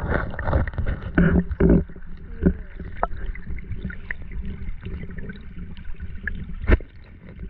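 River water sloshing and gurgling close to the microphone, with a low rumble and scattered knocks.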